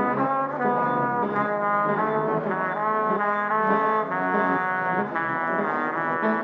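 Instrumental music with a brass-like tone: several notes sounding together, held and moving to new notes every half second or so.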